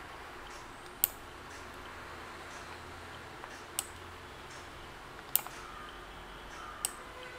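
Four single sharp clicks from computer controls being operated, spaced roughly one and a half seconds apart, over a steady low hiss of room and microphone noise.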